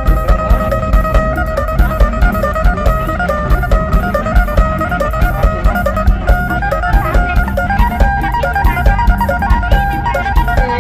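Background music: plucked guitar melody over a steady drum beat.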